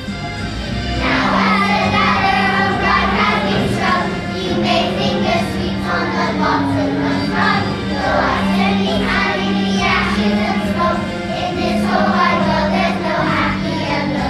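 A group of young children singing together over a recorded musical backing track, the voices coming in about a second in.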